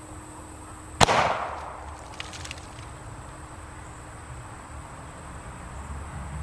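One sharp bang about a second in as an air-gun pellet bursts pressurized plastic bottles, pumped to 60 PSI and half-filled with crushed chalk, with a short decaying tail. A few faint ticks follow.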